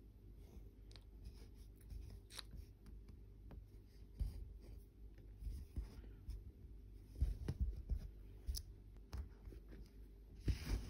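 Needle and embroidery floss worked through evenweave cross-stitch fabric: soft irregular pokes and short swishes of thread being drawn through, with a few louder rustles about seven seconds in and near the end.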